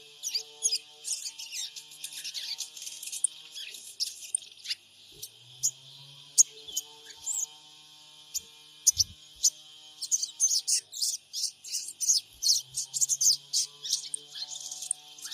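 Sogon birds calling: rapid, sharp, high chirps and twitters in irregular bursts, thickest at the start and again from about ten seconds in. A lure call meant to set other sogon birds calling.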